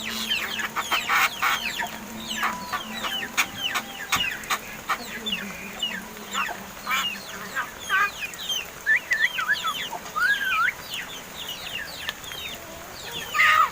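Pet mynas chattering: a busy run of short squawks, chirps and gliding whistles with no pause between them.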